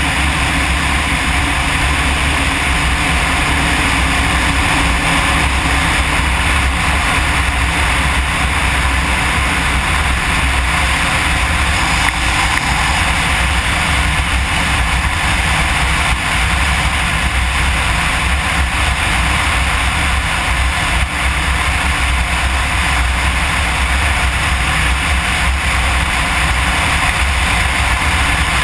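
Kawasaki KLR 650 dual-sport motorcycle running at a steady cruising speed, its single-cylinder engine under steady throttle, with wind and road noise rushing over the microphone.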